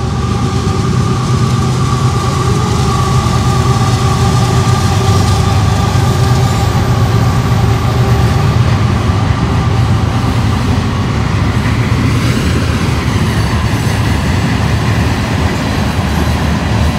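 Freight train with a diesel locomotive crossing a steel truss bridge: a loud, steady rumble of engine and rolling cars, with a steady tone above it that fades about twelve seconds in.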